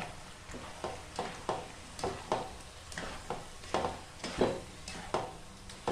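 Noodles being stirred in a pot of simmering broth: a run of short, irregular scraping strokes of a utensil, roughly one or two a second, over a low sizzle.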